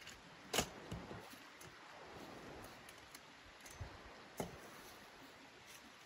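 Two sharp knocks, the first about half a second in and the second after four seconds, with a few faint ticks, over a faint steady outdoor hiss.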